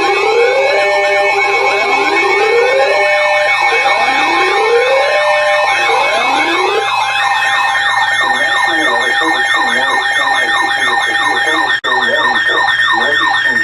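Several sirens layered together, with many overlapping wails and yelps rising and falling in pitch over a few steady alarm tones. It stays loud throughout and cuts off suddenly at the end.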